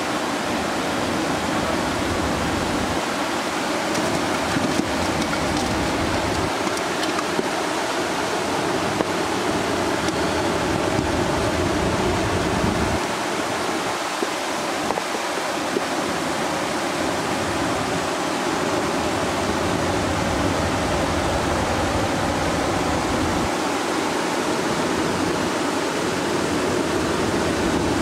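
Steady rushing of river water pouring over a weir, with a low rumble that comes and goes.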